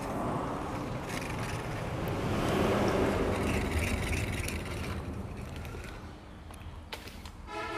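A road vehicle passing by, its rumbling noise swelling to a peak about three seconds in and then fading, with a short horn toot near the end.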